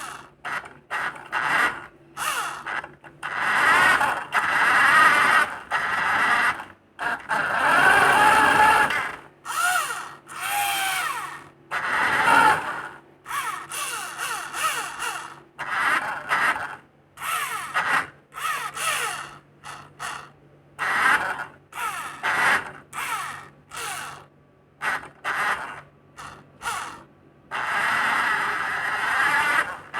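Small electric gear motors of a homemade wired RC car running in many short start-stop bursts, their whine rising and falling in pitch, with gear and wheel rattle.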